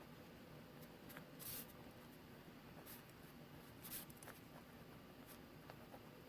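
Near silence: room tone with a low hum, broken by a few faint, brief rustles and small clicks, two of them about a second and a half and four seconds in.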